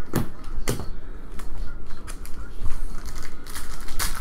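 Wrapper of a Panini Contenders football card pack crinkling and tearing as it is ripped open by hand, with sharp crackles near the start and again near the end.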